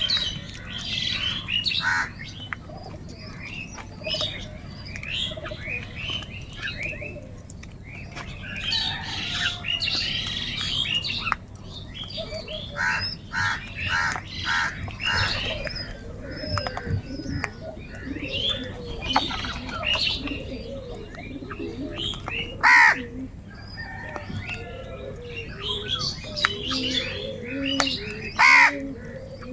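A group of crows cawing, many harsh calls overlapping, with a run of four evenly spaced caws about halfway through and two loud single caws near the end. Lower, softer repeated calls join in the second half.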